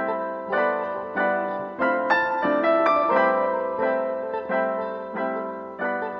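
Background piano music: a gentle melody of single struck notes, a few a second, each fading away.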